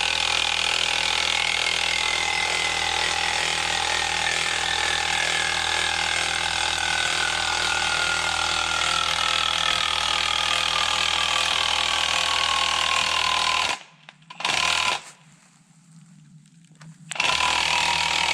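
A power tool drives a Forstreich TR 300 felling wedge into a beech cut. Its motor whine falls slowly in pitch as the load builds, a sign of the wedge working hard against a massive hinge. Near the end it stops for about three seconds, with one brief burst in the gap, then starts again.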